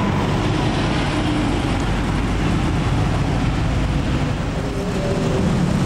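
KRL Commuter Line electric train rolling through a level crossing: a steady rumble, mixed with traffic noise from motorcycles waiting at the barrier.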